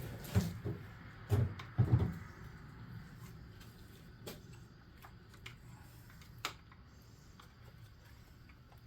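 A few short clunks and knocks in the first two seconds as engine parts are pulled out and handled during the teardown, then a few faint scattered clicks.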